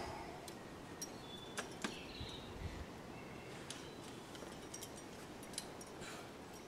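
Faint, scattered clinks of metal climbing gear on the leader's harness as he moves up the rock, over a low steady background hiss.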